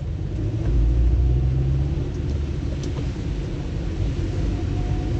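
Steady low rumble of a car's engine and tyres heard from inside the cabin while driving on a rain-soaked road, with a faint even hiss over it.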